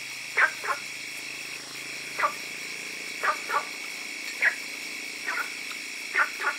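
Short animal calls, many in pairs, repeating about once a second over a steady high-pitched hum.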